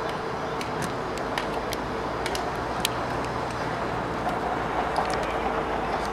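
Steady outdoor rumble and hiss with a dozen or so sharp clicks scattered through it, and faint distant voices about four to five seconds in.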